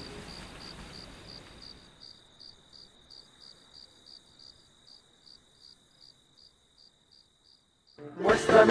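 Running water at a sink fades out over the first two seconds, leaving a faint cricket chirping steadily, about three chirps a second. Band music with singing comes in near the end.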